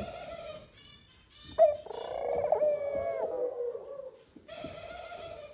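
Ringneck dove (tórtola de collar) giving a long drawn-out nest coo, the male's call to the female. The coo starts sharply about a second and a half in and sags slightly in pitch as it trails off.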